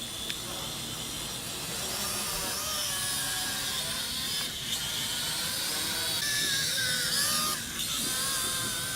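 Small quadcopter drone flying, its electric motors and propellers whining in several high tones that rise and fall as it manoeuvres.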